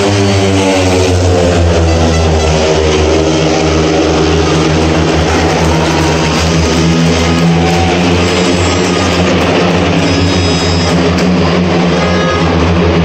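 Speedway motorcycles, 500 cc single-cylinder methanol engines, racing round the track, their pitch rising and falling as they pass and lap. Music from the stadium's loudspeakers plays underneath.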